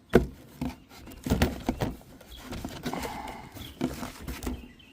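Irregular knocks and rustling from hand work on a car engine, as bolts and a replacement starter motor are handled. There is a sharp knock just after the start and a quick run of knocks around one and a half seconds in.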